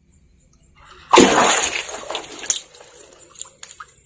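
Water splashing and sloshing in a sudden loud burst about a second in, fading away over a second or so, with a sharp knock near its end.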